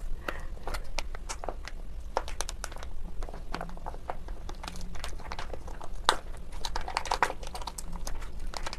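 Plastic sauce pouch crinkling and crackling with many small irregular clicks as it is squeezed and emptied of thick red sauce.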